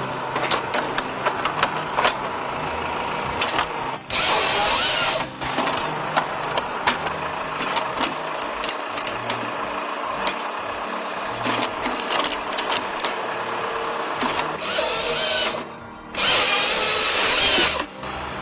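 Japa firewood processor running under load, with frequent sharp knocks and clicks from the log handling and splitting, and twice a louder, hissier stretch of a second or more, about four seconds in and again near the end, as it cuts through the log.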